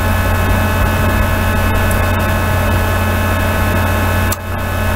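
Steady low electrical buzz of mains hum with hiss, briefly dipping about four seconds in.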